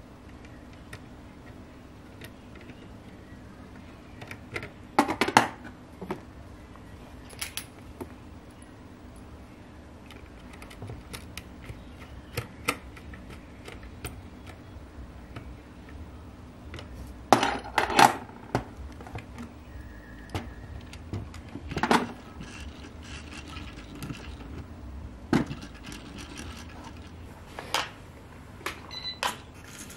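Scattered clicks, taps and light scrapes of a small metal hand tool and plastic parts being worked on a 3D-printed RC car chassis, with a few louder clusters of clattering knocks, over a faint steady hum.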